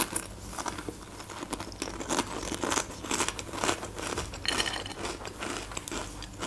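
A person chewing crunchy snack food close to the microphone: a run of irregular crisp crunches, with a sharper bite right at the start.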